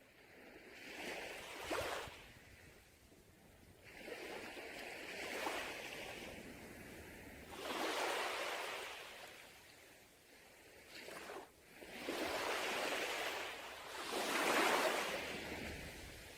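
Sea waves breaking and washing up a beach, the surf swelling and ebbing in about five surges every few seconds, the last one the loudest.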